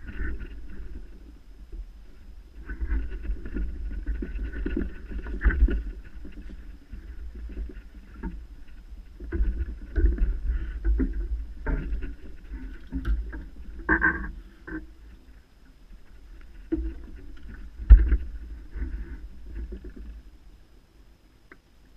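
Close handling noise of a match angler working a carbon fishing pole and his tackle on the seat box: rustling, bumps and a low rumble on the microphone, with several sharp knocks, the loudest near the end.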